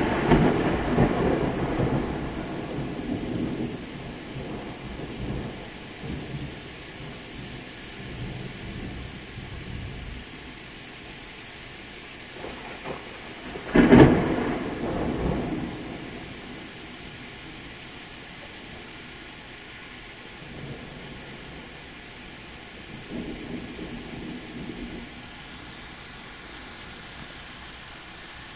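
Thunderstorm: steady rain with thunder. A loud clap at the start rumbles away over several seconds, a second sharp clap comes about 14 seconds in, and a fainter rumble follows near the end.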